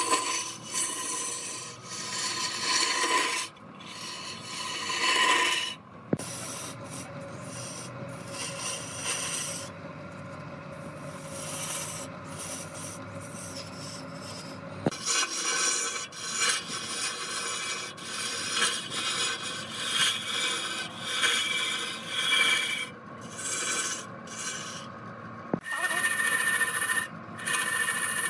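Rag pad pressed by hand against a large log spinning on a wood lathe, sanding the turned surface: a rasping, rubbing hiss that swells and fades, with the lathe running underneath. The sound changes abruptly a few times.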